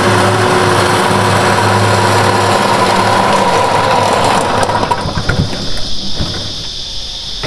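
Allett Liberty cylinder mower with a dethatching cartridge running as it is pushed across the lawn, its reel raking out dead thatch, a steady pitched hum that stops about four and a half seconds in. After it stops, steady high-pitched insect buzzing and a few light knocks remain.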